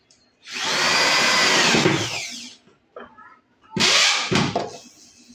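Corded electric drill driving screws down into a melamine particleboard panel: a motor whine of about two seconds that drops in pitch as it ends, then a second, shorter run.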